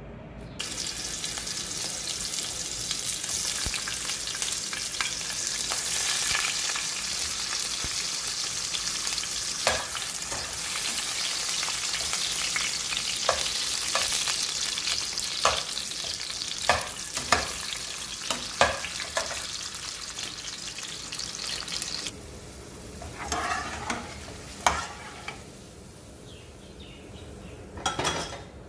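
Sausages sizzling as they fry in hot oil in a pot, with a metal slotted spoon clinking against them and the pot as they are turned. The sizzling drops away suddenly about three quarters of the way through, and only a few knocks follow.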